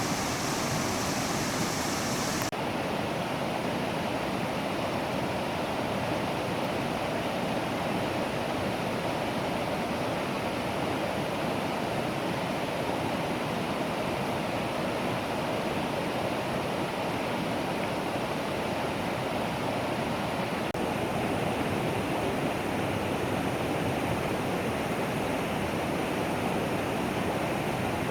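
Mountain valley stream rushing, a steady, even water noise. The tone shifts slightly a couple of seconds in.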